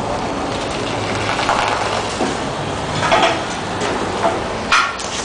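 Toyota Sequoia's V8 engine and exhaust running as the SUV drives off, a steady low drone under street noise. A few short scuffs come through around the middle and near the end.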